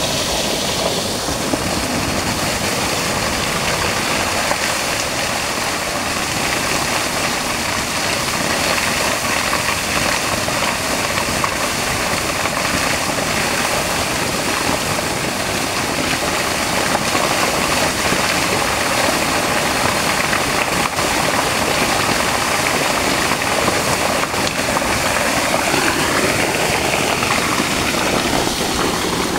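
A strong, steady jet of water gushing from a plastic pipe outlet and splashing onto rocks and into a muddy pool.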